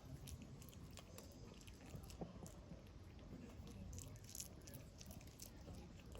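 A pet gnawing on a chew, with faint, irregular clicking and smacking chews several times a second.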